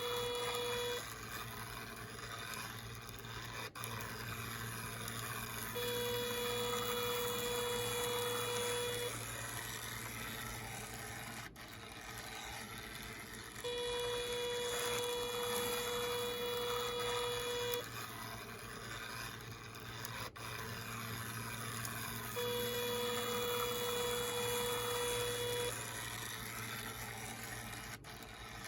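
Sensor-triggered T-gauge model railway crossing alarm sounding a steady electronic warning tone in blocks of three to four seconds, each time its sensor is tripped. The blocks come about every eight seconds, four times, with a low hum running beneath.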